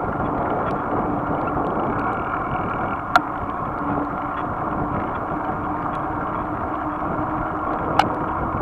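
Steady rushing wind and tyre noise picked up by a camera mounted on a moving bicycle on a wet road, with two sharp clicks, one about three seconds in and one near the end.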